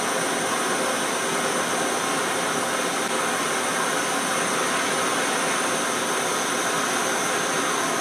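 Handheld gas torch burning with a steady hiss, its blue flame held on a twisted bundle of copper wires to heat and solder the joint.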